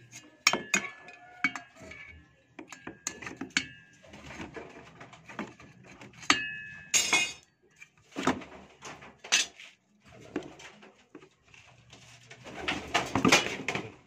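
Metal clinks and rattles of a socket wrench and loose metal parts while a drive pulley is unbolted from a washing machine motor: a run of sharp clinks with brief ringing in the first few seconds and again about six seconds in, then handling and scraping noise.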